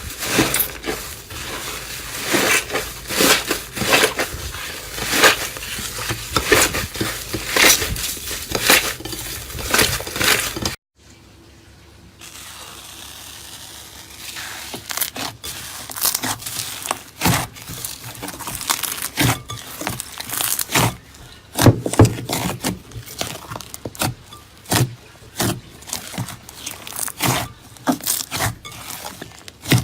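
Slime being squeezed and pressed, a dense run of crackles and pops. A cut about eleven seconds in brings a second handling clip with sparser clicks and squishes.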